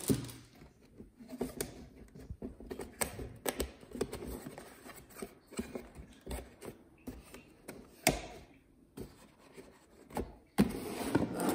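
Hands working a cardboard motherboard box and its cardboard insert, with crinkling of a plastic anti-static bag: an irregular string of taps, knocks and rustles, with a louder rustling stretch near the end.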